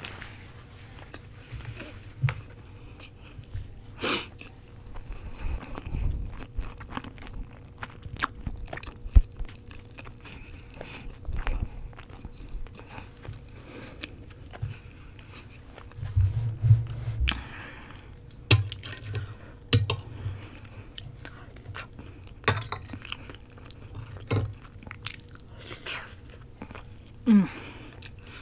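Close-miked chewing of roti, with soft wet mouth sounds and scattered sharp clicks and taps of a knife and fork.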